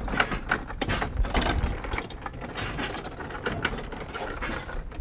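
Flatbed platform trolley being pushed over rough pavement, its small wheels rumbling and the frame rattling with irregular clicks and clatters.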